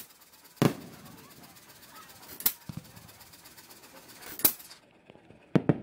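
Aerial fireworks shells bursting: a series of sharp booms, about six at uneven gaps, with two in quick succession near the end.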